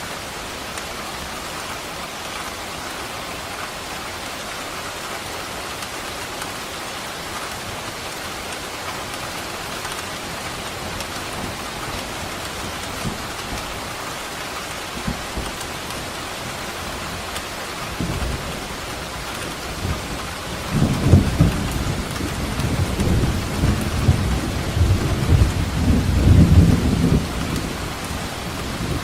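Steady heavy rain falling, with a roll of thunder rumbling up about two-thirds of the way through, loudest for several seconds and fading off near the end.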